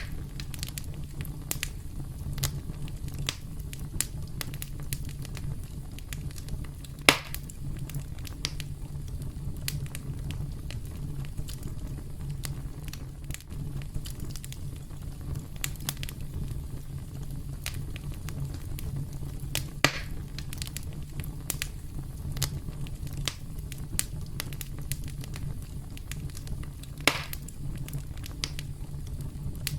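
Campfire crackling: a steady low rumble of burning wood with frequent small snaps and pops, three louder pops about a quarter, two thirds and nine tenths of the way through.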